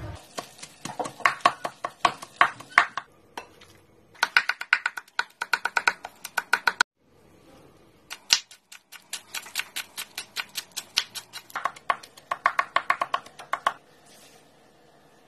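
Kitchen knife chopping on a wooden cutting board: quick runs of sharp knocks, several a second, with short pauses between runs, first mincing chicken and then slicing spring onions. The chopping stops near the end.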